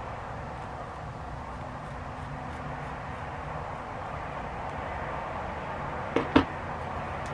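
Scissors snipping synthetic wig hair, heard as faint scattered ticks over a steady background hiss. About six seconds in there are two sharp clicks, close together.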